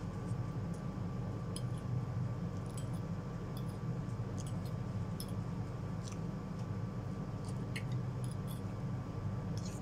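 Eating instant noodles with a fork and spoon: scattered light clinks and scrapes of metal cutlery on a ceramic plate, with soft slurping and chewing, over a steady low hum.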